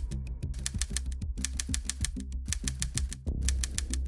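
Typewriter keystroke sound effect: a rapid run of sharp clicks, several a second, with a brief pause a little past three seconds in, over a steady low drone.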